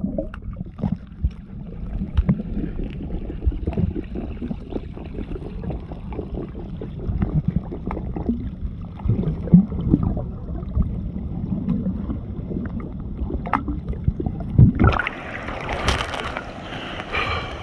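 Water in a mountain stream sloshing and gurgling close to the microphone, with many small irregular knocks and low rumbling. About fifteen seconds in it turns louder and splashier for a couple of seconds.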